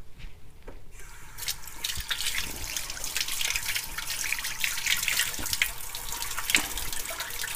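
Kitchen tap turned on about a second and a half in, water then running steadily and splashing into the sink.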